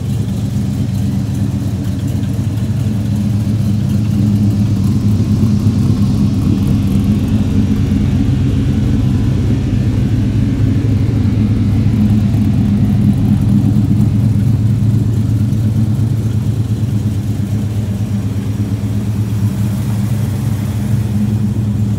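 1977 Chevy C10's small-block V8 idling steadily through Patriot headers and Flowmaster Hushpower HP-2 mufflers.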